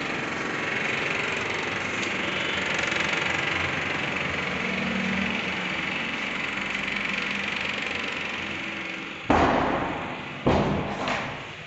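A steady noise haze, then two loud thumps about a second apart near the end, followed by a lighter one.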